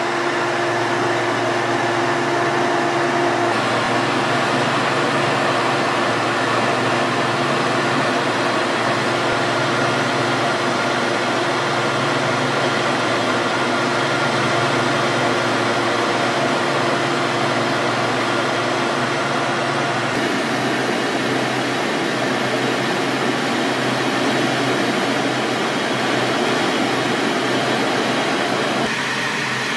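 Steady cockpit noise of a T-38 Talon jet trainer in flight: an even rushing of air and its twin turbojet engines, with a faint steady hum underneath. The tone of the noise shifts slightly a few seconds in and again about two-thirds through.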